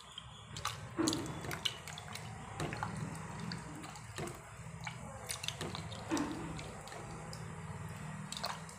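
Water sloshing and splashing in a stainless steel bowl as a hand rubs and swishes pieces of salted dry fish in hot water to wash them, with small clicks and knocks of the pieces and fingers against the bowl.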